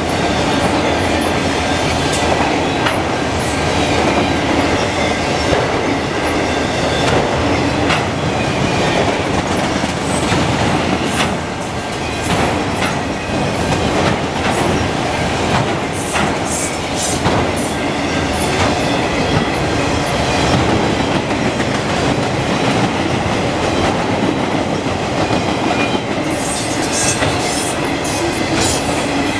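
Freight train of auto rack cars rolling past close by: a steady rumble of steel wheels on rail, with clicks as the wheels cross rail joints that come thickest near the end.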